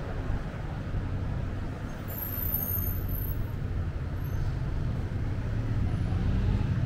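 City street traffic: a motor vehicle's low, steady engine rumble that grows a little louder near the end, with a brief high-pitched sound about two seconds in.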